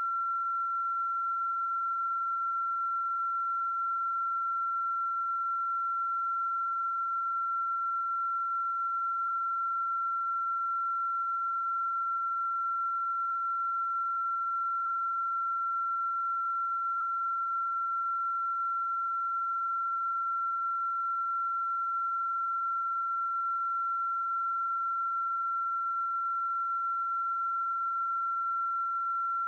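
A continuous high-pitched pure tone, a single unwavering whistle-like pitch at a constant level, of the kind made by an electronic signal rather than a natural sound.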